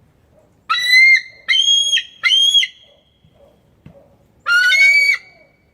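A bird giving loud, piercing calls: three in quick succession, then a fourth a couple of seconds later.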